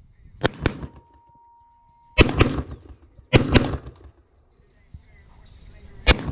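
Five gunshots fired at an irregular pace: a quick pair, then single shots. After the pair, and again after the last shot, a steel target rings with a steady 'ding' for about a second, the sign of a hit.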